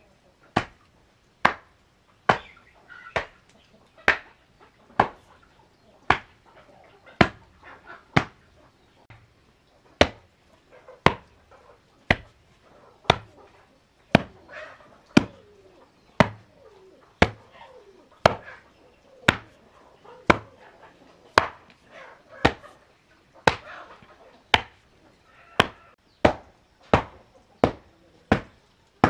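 Wooden hand tamper rammed down onto loose, stony soil to compact it: a steady run of sharp knocks, about one a second.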